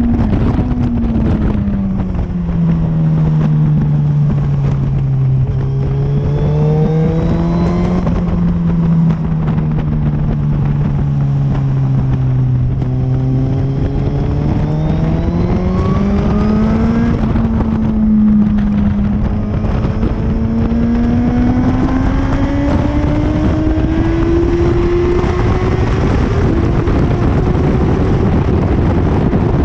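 Motorcycle engine heard from onboard at track speed, with heavy wind rush. The engine note drops over the first few seconds and holds low for about ten seconds. It then climbs, dips briefly, and rises steadily again, with a small step down near the end.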